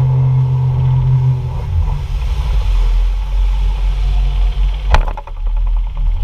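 Rigid inflatable boat's engine running at speed under water and wind noise, its steady note dropping to a lower, rougher rumble about a second and a half in as the boat slows. A sharp thump near the five-second mark.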